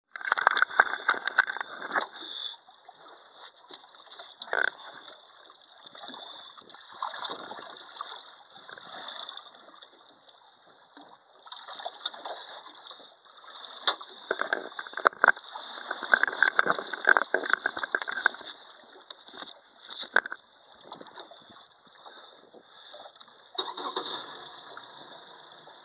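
Water lapping and splashing against a small boat's hull in irregular bursts, loudest in the first couple of seconds and again a little past the middle.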